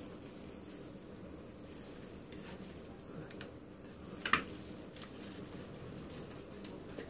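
Bandage scissors snipping through the soft cotton padding left on a foot after cast removal, with faint rustling of the padding and a few short clicks, the sharpest about four seconds in.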